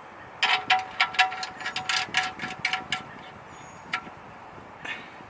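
Ratchet wrench with a 17 mm socket clicking as the oil pan drain bolt is turned back in with a new washer. A quick irregular run of ringing metallic clicks lasts about two and a half seconds, followed by two single clicks.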